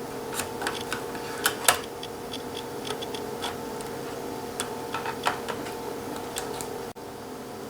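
Flathead screwdrivers prying at a laptop's plastic top case, with irregular sharp clicks and snaps as the case's plastic tabs pop loose, the loudest a little under two seconds in. A faint steady hum runs underneath.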